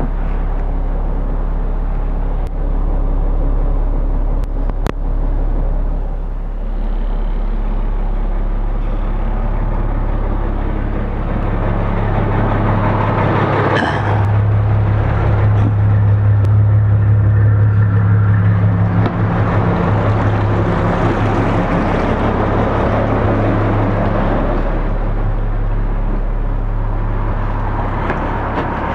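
A large motor yacht's inboard engines idling at the dock: a steady low hum, louder for several seconds in the middle.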